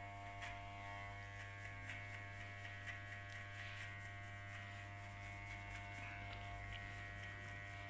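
Electric hair clipper running steadily with a humming buzz as it cuts short hair in a fade, with faint irregular ticks over the hum.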